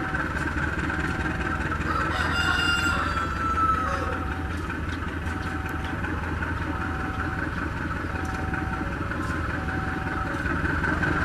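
A CC203 diesel-electric locomotive's engine runs with a steady low drone as it hauls a passenger train slowly out of the station. A rooster crows once, about two seconds in.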